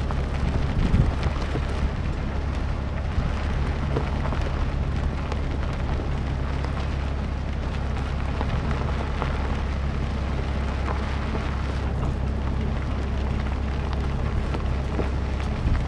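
Fordson Dexta tractor's three-cylinder diesel engine running at a steady pace while towing a loaded bale trailer, a constant low drone. Over it comes an unbroken rattling rush from the trailer rolling along the dirt track.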